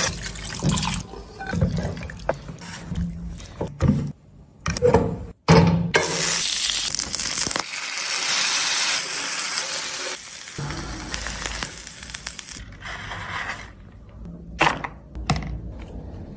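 Cooking sounds in short edited cuts: a wet mash of boiled vegetables slops from a pressure cooker into a metal kadai with some knocks of metal on metal, then pav bhaji sizzles steadily in foaming butter on a hot tawa.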